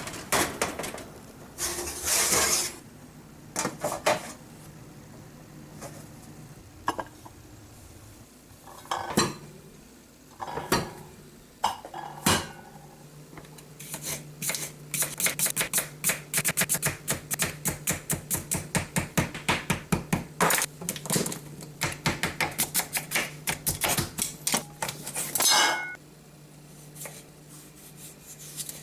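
Kitchen utensils and dishes knocking: scattered clinks and knocks, then a quick, even run of taps at about five a second that goes on for some twelve seconds and stops, with a steady low hum underneath.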